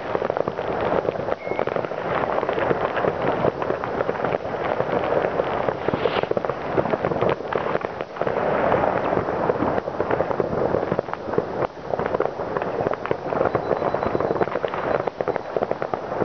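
Many fireworks going off at once across a town: a dense, unbroken crackle of bangs and pops with no pauses.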